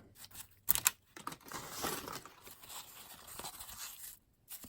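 A baseball card pack's wrapper being torn open, with a sharp rip about three-quarters of a second in, then softer scratching and rustling of paper as the pack is worked open.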